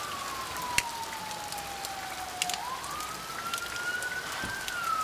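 Warning siren wailing during a tornado warning: a single tone that slides slowly down, rises over about two seconds, then falls again.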